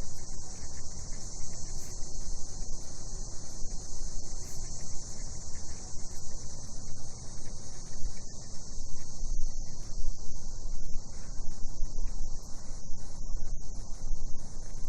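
Cicadas droning in a steady, unbroken high-pitched chorus, over an uneven low rumble.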